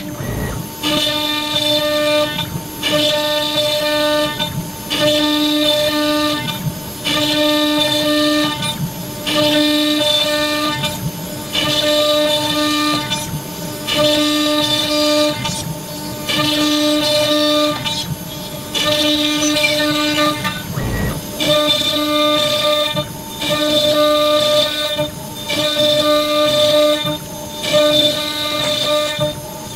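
CNC router spindle running at a steady high pitch while the bit cuts square holes in a wooden board. The sound swells and dips every second or two with short breaks, and the footage is played at double speed.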